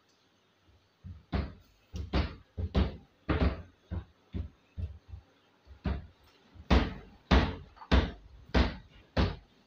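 A run of repeated thumps and knocks, irregular at about two to three a second, starting about a second in, several of them loud.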